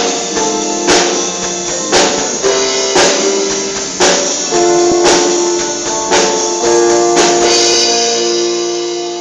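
Worship band music: sustained chords with a sharp percussion hit about once a second, the hits stopping after about seven seconds as the last chord fades out.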